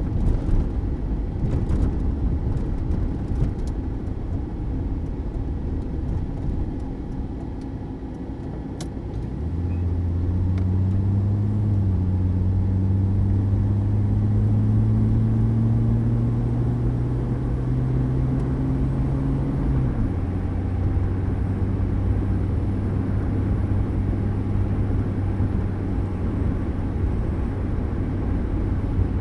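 A 1979 Mercury Zephyr sedan on the move, with a low steady rumble. About a third of the way in, its engine note comes up strongly and climbs slowly. About two-thirds of the way through it drops suddenly to a lower, steady note.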